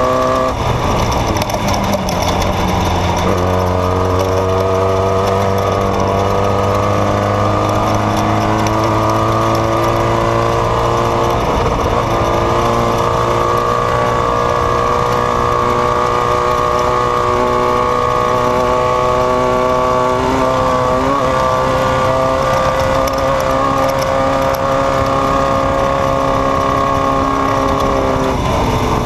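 Desert off-road race vehicle's engine running hard under sustained throttle. Its pitch climbs slowly and dips briefly a few times.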